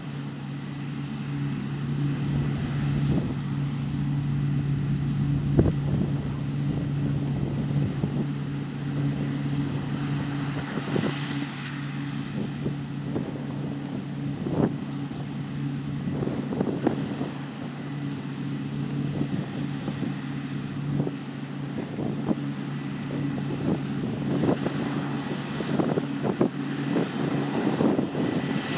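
Large diesel engine of harvest machinery running steadily with a constant drone, with scattered short knocks over the top.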